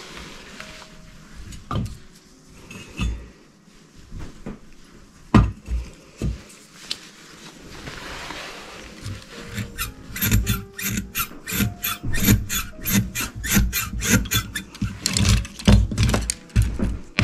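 A few knocks as objects are handled on a table, then from about ten seconds in a quick run of sharp clicks, about three or four a second, as the plunger of a brass pump-top glass sprayer bottle is worked.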